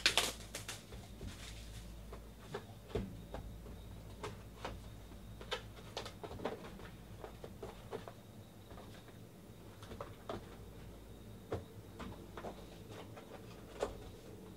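Cardboard trading-card boxes and their plastic shrink wrap being handled: a loud crinkly burst of wrap right at the start, then scattered taps, scrapes and rustles as sealed mini boxes are lifted out of an opened box and set down.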